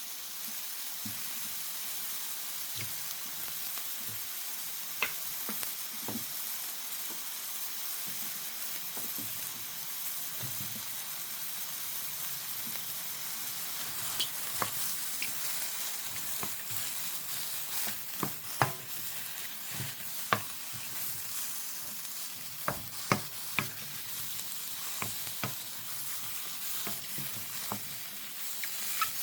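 Sliced king oyster and emperor mushrooms sizzling in a frying pan over high heat as they are stir-fried, with scattered sharp clicks as the stirring utensil strikes the pan, thickest in the second half. The moisture is being cooked off the mushrooms.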